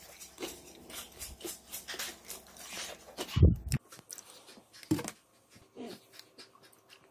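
Crisp crackling and clicking as chopsticks break into a crunchy fried eggplant slice. A dull thump comes a little over three seconds in, then soy sauce is poured into a small glass bowl.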